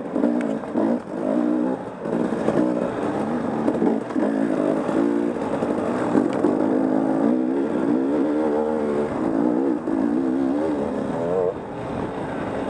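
Dirt bike engine running hard under load, its pitch rising and falling again and again as the throttle is worked over rough trail.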